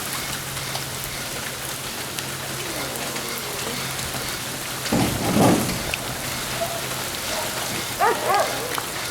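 Steady rain falling, with a low steady hum underneath that stops about seven seconds in and a brief louder noise about five seconds in.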